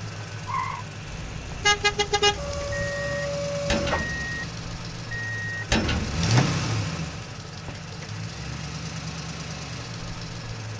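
Cartoon truck sound effects laid over a toy LEGO truck: a steady low engine hum, four quick horn toots about two seconds in, then three evenly spaced high beeps like a reversing alarm. About six seconds in there is a louder passing swoosh of the engine.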